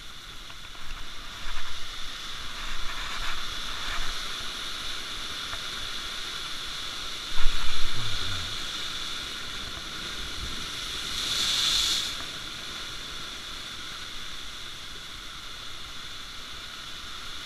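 Sea waves breaking and washing over shoreline rocks, a steady hiss of surf with one wash swelling louder near the end. A low thump sounds about seven seconds in.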